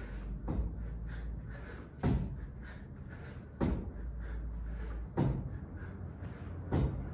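Repeated clanks or thuds from gym equipment during a workout, one about every second and a half, in the even rhythm of repetitions, over a steady low hum.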